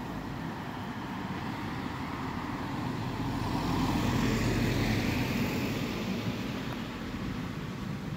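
A car driving past on the street: its tyre and engine noise swells to a peak about halfway through, then fades away.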